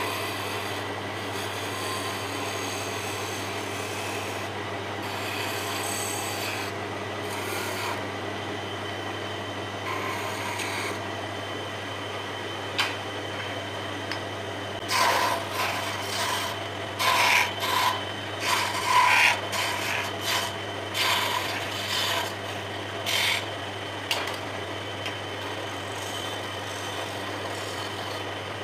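Wood lathe running with a steady hum while a wide flat chisel scrapes and cuts a spinning wooden spindle. About halfway through comes a run of roughly a dozen louder, short cutting strokes, which end shortly before the close.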